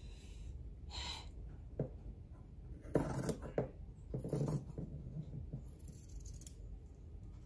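Large metal dressmaking shears snipping through linen fabric, a few separate cuts spread over several seconds.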